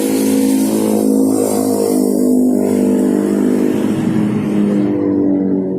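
Yamaha RX-King's two-stroke single-cylinder engine running at a fairly steady speed through a custom exhaust tuned for a deep 'ngorok' (snoring) growl.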